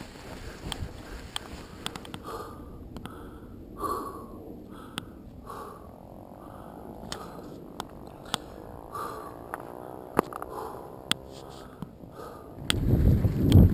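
A cyclist breathing hard, about two heavy breaths a second, with scattered sharp clicks and rattles from the mountain bike. Near the end wind starts rushing over the camera microphone as the bike picks up speed downhill.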